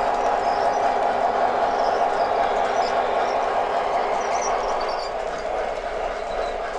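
MTH O-scale model trains running: a steady drone of wheels rolling on the track and locomotive running noise, dipping slightly about five seconds in.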